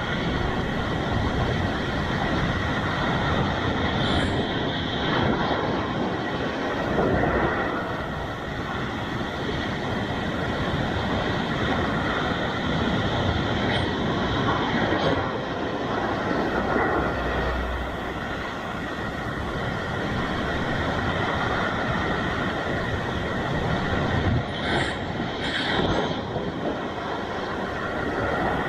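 Sea waves breaking on a rocky shore: a continuous rush of surf that swells and eases every several seconds, with a few short splashes against the rocks.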